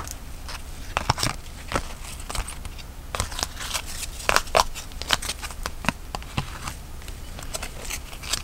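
Trading cards being handled and flipped through one by one, making irregular sharp clicks and snaps of card stock.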